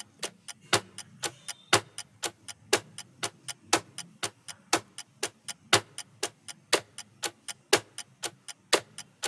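Ticking-clock sound effect of a quiz countdown timer: even ticks about four a second, every fourth one louder, marking the seconds left to answer. The ticking stops near the end as the count runs out.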